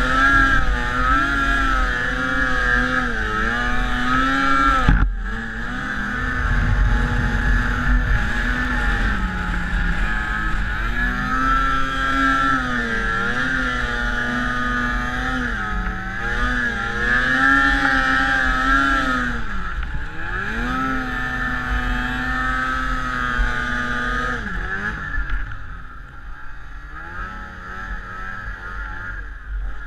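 Snowmobile engine running under varying throttle, its pitch rising and falling over and over as the rider eases on and off. There is a sharp knock about five seconds in. Near the end the engine drops lower and quieter.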